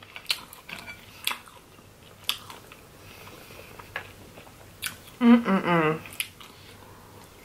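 Close-miked eating: sharp clicks and cracks of crab leg shell being broken and picked apart, with chewing in between. A short voiced sound from the eater about five seconds in.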